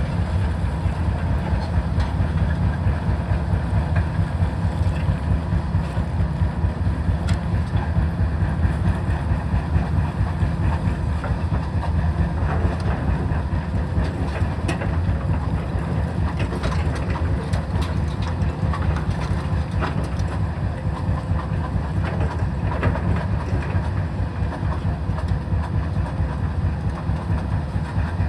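Heavy diesel demolition machinery running with a steady low rumble, with scattered clanks and knocks of metal and debris.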